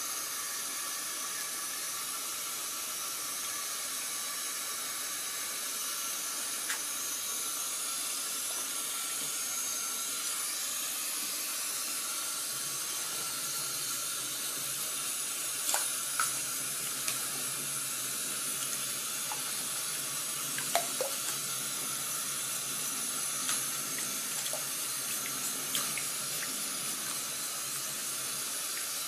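Tap water running steadily into a shallow plastic tub. A few short splashes and knocks stand out in the second half as the hedgehogs in the water are handled.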